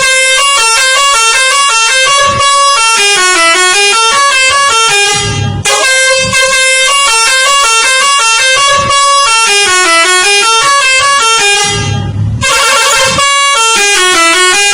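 Indonesian bus 'telolet' musical horn playing a quick tune of stepping notes. The tune breaks off briefly twice and starts over each time.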